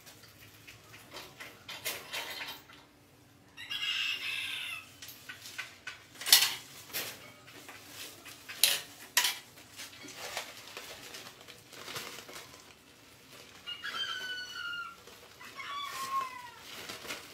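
A few short pitched animal calls, two of them falling in pitch, among scattered sharp clicks and knocks.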